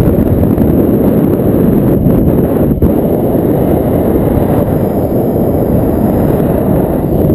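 Wind rushing over the microphone of a camera worn by a paraglider pilot in flight. It is a loud, steady rush of wind noise, with a short dip about three seconds in.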